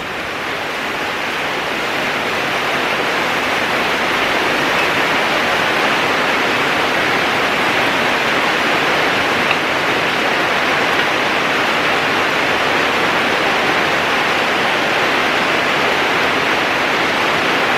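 Heavy rain pouring down in a steady, even rush that builds a little over the first couple of seconds and then holds.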